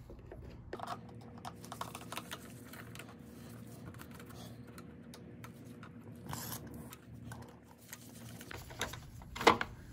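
Screwdriver working the screw and plastic air filter cover of a Briggs & Stratton Quantum mower engine: a run of light, irregular clicks and taps as the cover is loosened.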